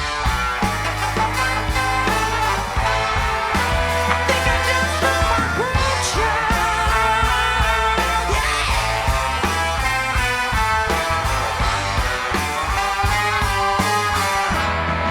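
Soul band playing live, with horns over drums and bass.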